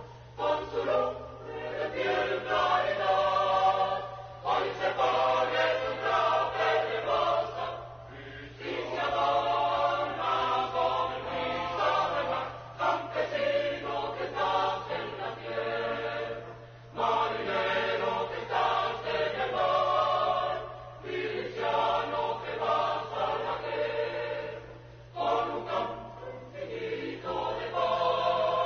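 Choir singing as background music, in long held phrases of about four seconds each, with a short break between phrases.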